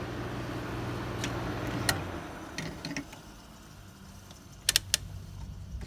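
An early-1980s Kenmore window air conditioner running, with a steady hum and fan air noise, its compressor quiet. The running sound drops away about two to three seconds in. Several sharp clicks follow, the loudest a close pair near the end.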